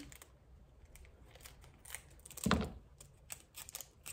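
Scissors snipping a foil Pokémon card pack's wrapper, with light clicks and crinkles of the wrapper. A knock about two and a half seconds in as the scissors are set down on the table, then the pack crinkles in the hands near the end.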